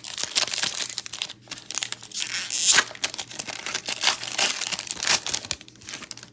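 Plastic foil trading-card pack wrapper being crinkled and torn open, a dense crackling with a loudest tear about two and a half seconds in.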